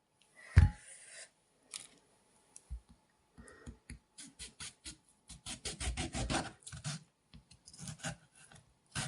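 A small, dull kitchen knife sawing and scraping through food in a run of short rasping strokes, several a second. There is a single knock about half a second in.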